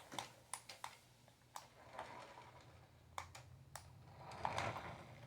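Scattered light plastic clicks and taps from a toy RC truck and its controller being handled, with a couple of brief soft rustles.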